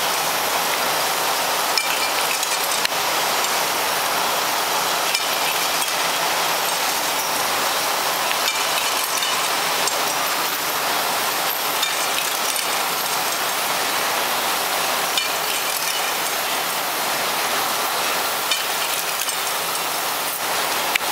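Glass vial forming machine running: a steady hiss, likely from its gas burner flames, with occasional light clinks of glass.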